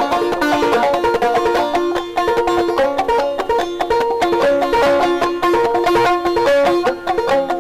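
Background music: a fast-picked, banjo-led plucked-string tune in a bluegrass style.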